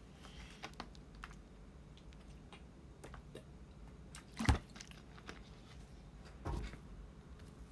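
Faint scattered clicks and taps from handling a tablet and its stylus, with one sharper knock about four and a half seconds in.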